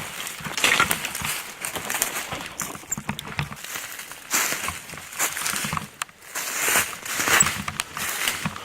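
Footsteps pushing through thick brush and dry forest litter, with twigs and leaves crackling and rustling in an irregular run.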